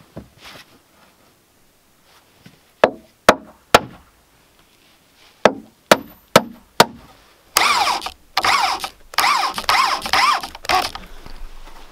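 A hammer drives nails into wooden boards: three blows about three seconds in, then four more a couple of seconds later. Then a corded electric drill drives a screw into the wood in several short runs of its motor.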